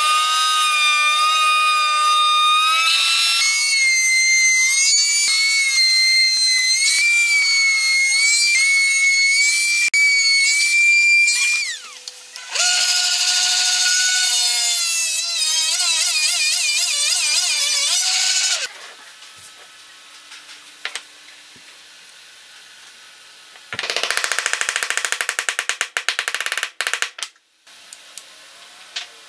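Table-mounted router spinning up to a high whine and cutting a small wooden piece, its pitch shifting as the cut goes, for about twelve seconds. After a short pause a benchtop drill press runs for about six seconds, drilling through the wood; later comes a shorter burst of machine noise.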